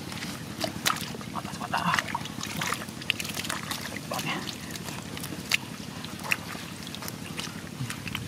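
Hands groping through shallow muddy water and mud for fish: irregular wet squelches and small splashes, over a steady low rumble.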